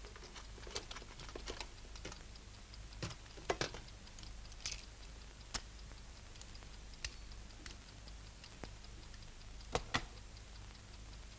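Scattered clicks and taps of small plastic and metal parts as a toy submachine gun is taken apart by hand to get at its spring, with the sharpest clicks about three and a half seconds in and near ten seconds. A clock ticks faintly and steadily underneath.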